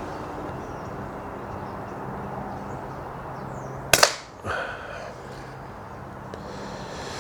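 Snowpeak PP20 .177 pre-charged pneumatic air pistol firing a single shot about four seconds in: one sharp crack, over a low steady hum.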